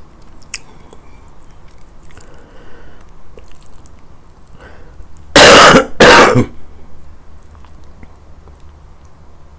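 A person coughs twice in quick succession, very loud, about halfway through.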